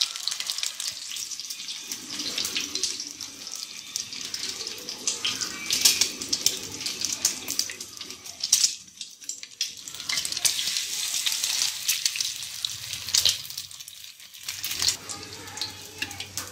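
Egg-dipped bread sandwiches shallow-frying in hot oil in a pan: a steady crackling sizzle that fades away for a moment twice.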